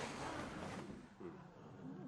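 A steady rushing hiss that fades away about a second in, followed by a faint voice.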